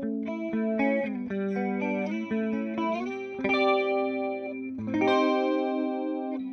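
Clean electric guitar, a Fender Jazzmaster with humbuckers, played through a Boss CE-2 chorus pedal into a simulated Fender '65 Twin Reverb amp. Picked single notes and chords, with a chord struck about three and a half seconds in and another about five seconds in, each left to ring.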